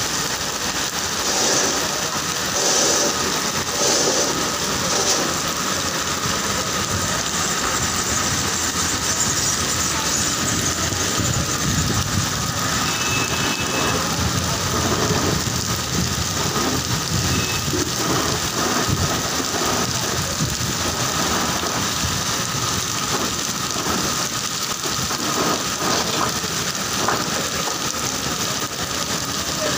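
Heavy rain pouring onto a flooded road: a steady, dense hiss, with vehicle noise underneath.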